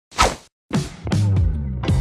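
A short whoosh transition sound effect, then background music starts with steady low notes and a light beat about two-thirds of a second in.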